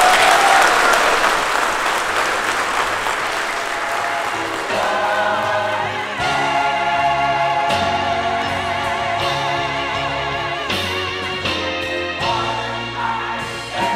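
Applause from the congregation and clergy for about four seconds, fading as a choir with instruments begins singing about five seconds in.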